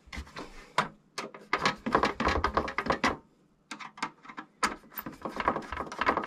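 Rapid clicking and scraping of a screwdriver and hands working on a light fitting's metal backplate and plastic terminal blocks, with a brief pause about halfway through.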